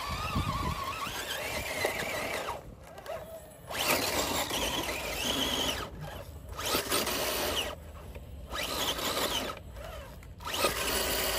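The electric motor and gear drivetrain of a 1/10-scale RC rock crawler whining, the pitch rising and falling as the throttle is worked in short bursts with brief pauses between them.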